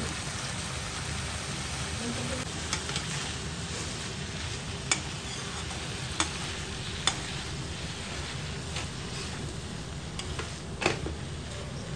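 Cauliflower, potato, peas and onion sizzling in mustard oil in a steel kadhai, stirred gently with a perforated steel spoon. The steady frying hiss is broken by a few sharp clicks of the spoon against the pan.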